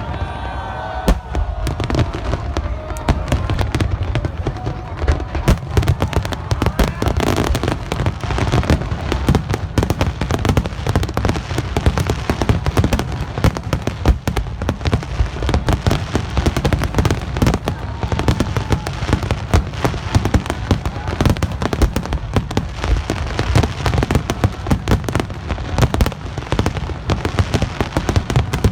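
Fireworks display: a dense, continuous barrage of aerial shell bursts and crackle, many sharp reports a second over a low booming rumble.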